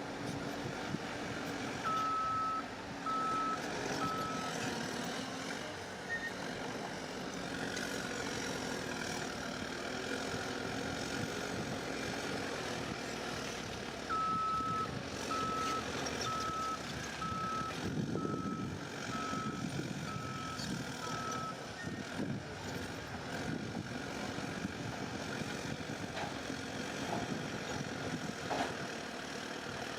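Heavy earthmoving machinery running at a worksite while a back-up alarm beeps at a steady pace: four beeps about two seconds in, then a longer run of about nine beeps from about fourteen seconds in, a sign that a machine is reversing.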